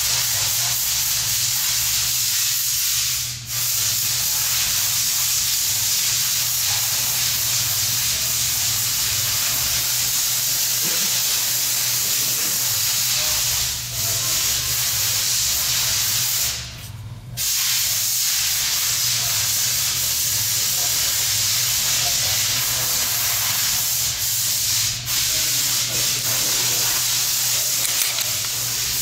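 Steady loud hiss with a low hum beneath it, dipping briefly a few times and once for about a second.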